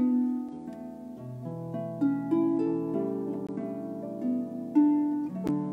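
Instrumental harp and piano music: a harp and a grand piano playing together, plucked and struck notes ringing and fading over one another in a slow, gentle passage.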